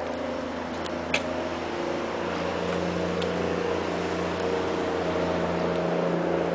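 A motor vehicle engine running nearby, a steady hum that grows slightly louder after about two seconds, with one sharp click about a second in.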